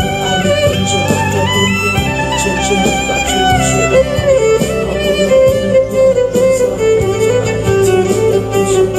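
Solo violin playing a slow pop melody with vibrato over a recorded backing track with a bass line and a light beat.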